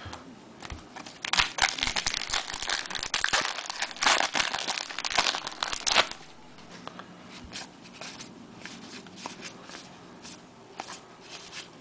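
Foil trading-card pack wrapper crinkling and tearing as a pack of baseball cards is opened, loudest in the first half. After that it settles to lighter rustling and clicks of cards being handled.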